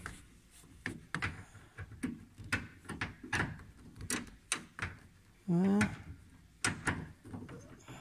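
Torx driver clicking and scraping against the screw and the steel inner panel of a Ford Transit door as it is worked through an access hole: irregular short knocks and clicks.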